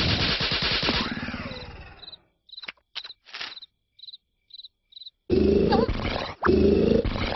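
Loud cartoon snoring from a sleeping larva character. The first snore fades out over about two seconds. A few short, high cricket chirps sound in the quiet that follows, and about five seconds in the loud snoring starts again with two long snores.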